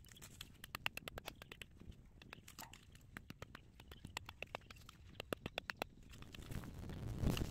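Dry, hard clay soil clods being broken up and crumbled with gloved hands and a small hand tool: quick, irregular crunching and crackling clicks, with a louder rustle near the end.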